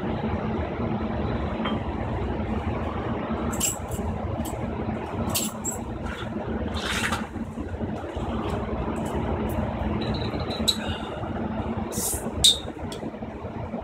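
Steady low rumble of urban traffic-type background noise, with scattered light clinks and a brief rush of noise about seven seconds in, from a glass bottle and a water-filled bucket being handled.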